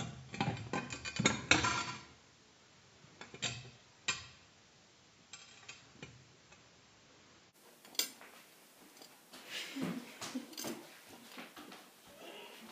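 Scattered light knocks and clatters of hard objects: a cluster in the first two seconds, a few single knocks after that, and softer bumps near the end.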